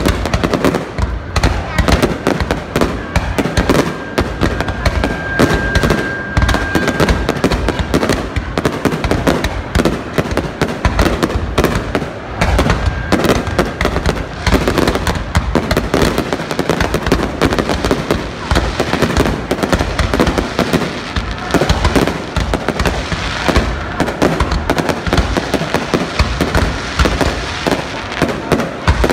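Fireworks display: a dense, unbroken barrage of aerial shell bursts and crackle, with a thin steady whistle from about three to seven seconds in.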